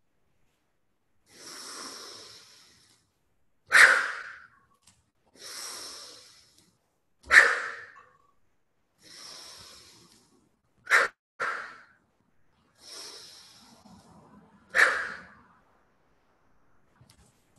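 A person's deliberate breathing exercise: four cycles, each a soft drawn-in breath about a second and a half long followed by a short, forceful exhale that starts sharply and fades. The forceful exhales are the loudest sounds, and the third comes as two quick puffs.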